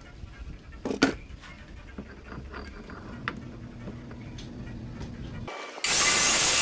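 A few light clicks and knocks, the loudest a double click about a second in, then a loud steady hissing noise cuts in suddenly near the end.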